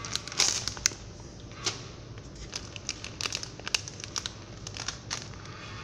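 A filled plastic-film snack pouch crinkling in irregular crackles as it is handled and turned over in the hand. A steady low hum runs underneath.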